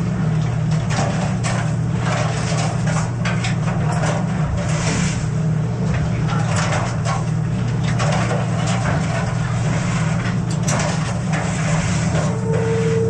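Steady low drone of a fishing boat's engine and deck machinery, with frequent clatter and knocks as king crabs are handled on a metal sorting table. A steady higher whine joins near the end.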